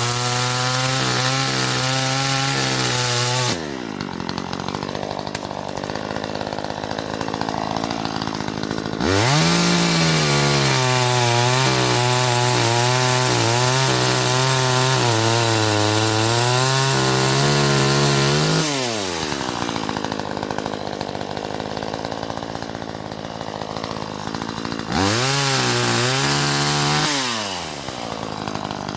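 Gas chainsaw running at full throttle and cutting wood in three stretches, the pitch sagging a little under load, and dropping back to idle between cuts.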